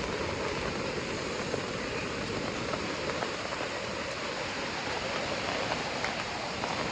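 Steady rush of stream water flowing down from a lake above.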